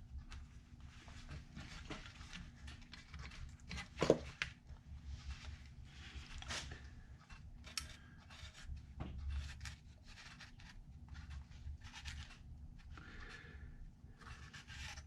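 Faint, irregular scratching of a marker drawing a cut line on a sheet-metal patch panel, with light handling of the panel and one louder brief sound about four seconds in.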